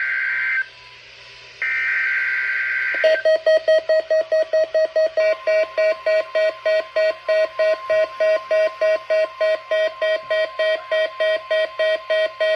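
NOAA Weather Radio SAME header: the two-tone data bursts of the weekly test, one ending under a second in and another about two to three seconds in. From about three seconds in, an electronic alert alarm beeps rapidly, about three to four beeps a second, and becomes the loudest sound, with a faint steady tone underneath.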